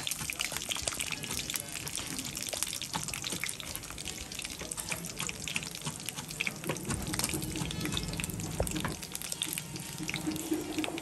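Dried buffalo meat (sukuti) sizzling in hot oil in a frying pan: a steady hiss with many small crackles.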